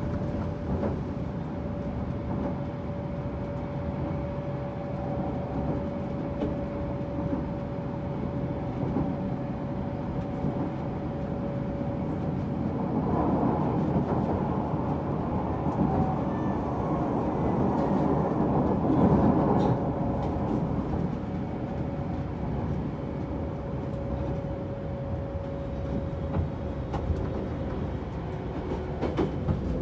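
Interior running sound of a JR Shikoku 8000 series tilting electric train under way: a steady rolling rumble with a constant hum from its Toshiba GTO VVVF traction equipment. The rumble grows louder for several seconds around the middle, and near the end the hum drops slightly in pitch.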